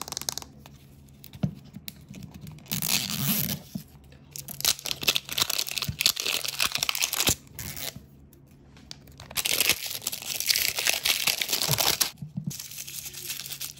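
Plastic film wrapping and a paper seal being torn and peeled off a small toy capsule ball, close up, crinkling in three main bursts with short pauses and a few light clicks between.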